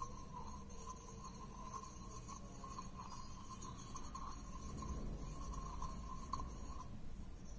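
Faint rubbing and scraping as moringa-leaf juice and edible lime are stirred together into a paste in a small bowl, with a thin steady high hum behind it.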